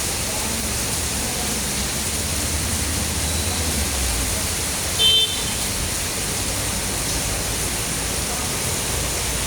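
Heavy rain pouring steadily, with a low rumble of strong wind underneath. About five seconds in, a short high-pitched beep sounds once.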